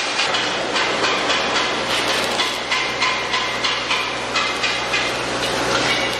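Workshop machinery running: a steady mechanical noise with a regular clatter of about two knocks a second over a low hum.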